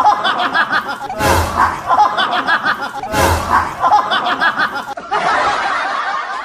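People laughing and exclaiming. The same short stretch is heard three times in a row, each time opening with a sharp thump. About five seconds in it gives way to a denser, duller stretch of laughter and voices.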